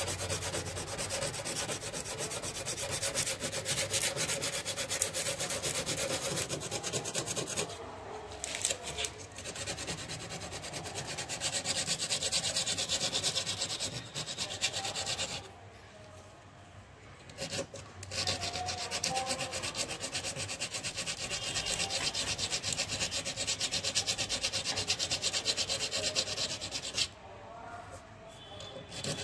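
80-grit sandpaper rubbed by hand back and forth over a rusty steel car body panel, a rapid scratchy scrubbing that grinds away the rust. The sanding stops briefly a few times, longest just past the middle.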